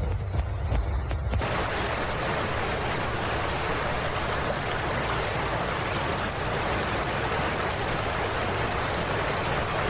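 Hovering helicopter: a deep rotor rumble with a thin high whine. About a second and a half in, this cuts off abruptly to a steady, even rushing noise with no distinct tones.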